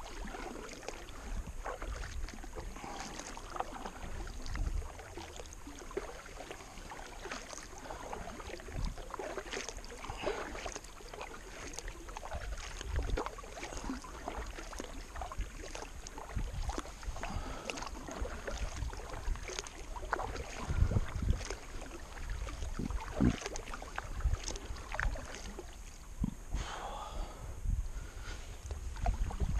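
Kayak paddling: the double-bladed paddle dipping and splashing in the water stroke after stroke, with wind rumbling on the microphone.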